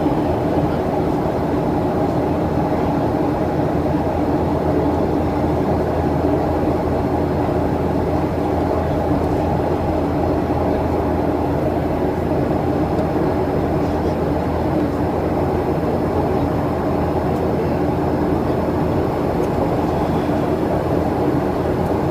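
Steady drone of a Boeing 737-800's CFM56 jet engines and airflow, heard from inside the passenger cabin in flight. The level holds even throughout, with no change in thrust.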